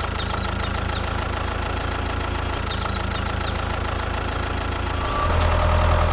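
Mini tractor's engine running steadily at idle, growing louder and deeper about five seconds in.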